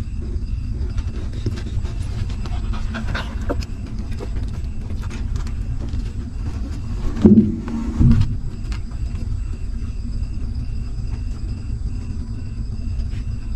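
Newborn puppies suckling and shuffling at their mother dog, with small soft clicks over a steady low rumble. About seven seconds in come two short, loud, low sounds a second apart.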